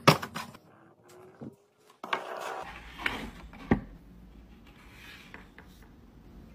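A cardboard pizza box handled on a tabletop: a sharp knock at the start, then rubbing and scraping with a few more knocks.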